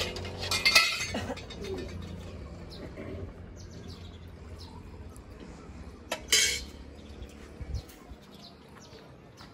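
Steel plates, cups and a jug clinking and scraping during a meal, with a clatter about a second in and another short one about six seconds in. Birds chirp faintly in between.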